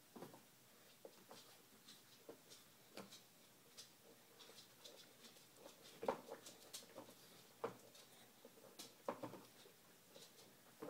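Near-quiet room with faint, irregular small clicks and taps scattered throughout, a few louder ones about six seconds in and again around nine seconds.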